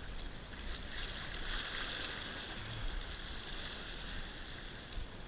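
Sea water washing and sloshing against breakwall rocks, a steady wash with a few faint ticks.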